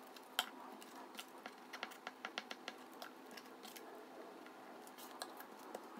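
Faint clicks and light taps of paper cutouts and a glue stick being handled and pressed down, with a quicker run of ticks about two seconds in.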